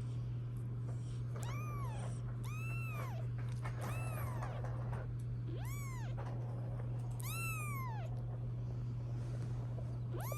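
Young British shorthair kitten meowing, five high-pitched calls about a second and a half apart, each rising and then falling in pitch, with another starting near the end, over a steady low hum.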